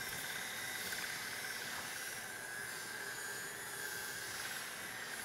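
KitchenAid stand mixer motor running steadily, driving the pasta roller attachment as dough is fed through the rollers.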